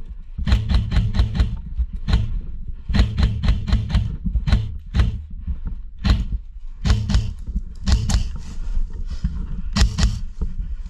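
Background music with a steady, heavy beat: a fast run of sharp hits over deep bass.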